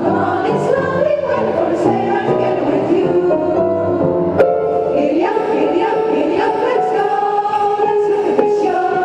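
Women's choir singing in several parts, holding sustained chords, with one sharp tick about four and a half seconds in.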